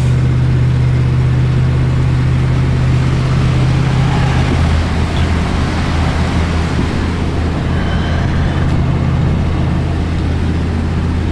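An old pickup truck's engine and road noise heard from inside the cab while it tows a loaded car trailer. The engine drones steadily, and its note drops lower about four and a half seconds in.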